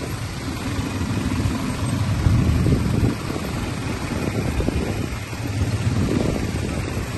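Quad bike (ATV) engines running as several riders drive along a dirt trail, a steady low rumble.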